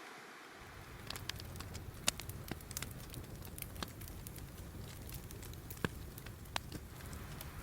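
Campfire crackling: scattered, irregular sharp pops and snaps over a low steady rumble that comes in about half a second in.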